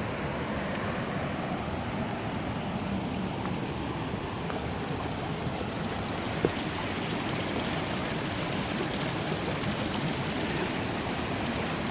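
Steady rushing of a small waterfall spilling over rocks, with one short tick about halfway through.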